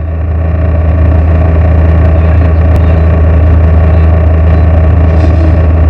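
Off-road race vehicle's engine running loud and steady at a constant pitch, fading in over the first second.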